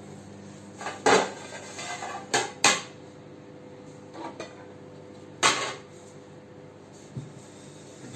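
Dishes and cutlery clattering as a tray is set: sharp clinks and knocks about a second in, twice near three seconds and once past five seconds, with softer taps between. Under them runs a steady hum from the microwave oven heating the coffee.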